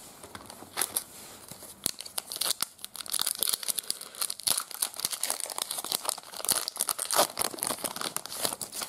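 A foil trading-card pack being torn open by hand and its wrapper crinkled as the cards are pulled out. A few scattered crackles at first, then a dense run of crinkling from about three seconds in until near the end.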